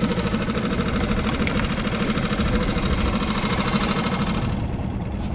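Small outboard motor on a skiff running steadily at low speed, an even motor hum; its brighter upper part drops away about four and a half seconds in.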